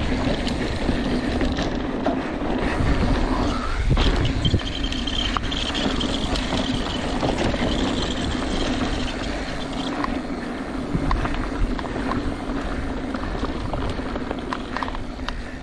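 Mountain bike riding down a loose gravel and dirt trail: a steady rumble of tyres over the gravel with small rattles from the bike, and wind on the microphone.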